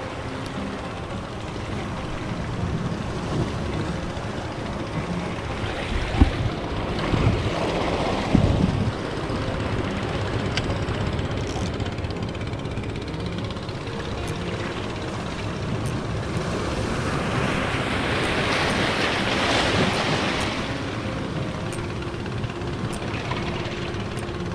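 Small sea waves washing in over the rocks of a breakwater, with wind on the microphone. A few thumps come about a third of the way in, and a wave surges up loudest about three quarters of the way through.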